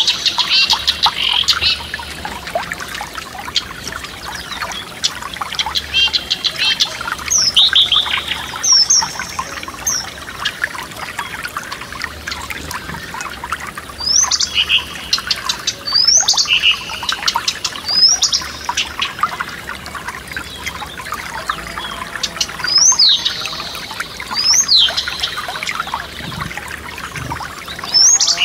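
Forest stream trickling steadily under songbirds singing, with bursts of quick, high, upward-sweeping whistled notes that come and go every few seconds.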